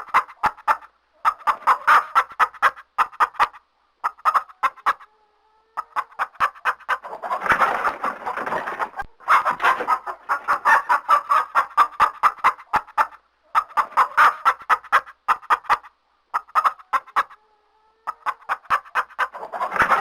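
An agitated chicken clucking rapidly, several sharp clucks a second in bursts of one to four seconds with brief pauses between them.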